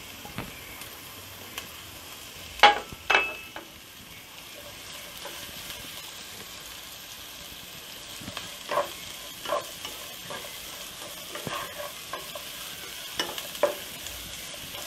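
Shredded cabbage, carrots and beans sizzling in hot oil in a pan while a wooden spatula stirs and tosses them, with sharp knocks of the spatula against the pan, the loudest two about three seconds in and more in the second half.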